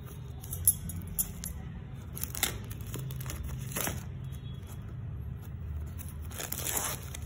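Clear plastic shrink-wrap being torn and peeled off a cardboard phone box, crinkling in a few short bursts, with a couple of sharp clicks in the first second or so over a steady low hum.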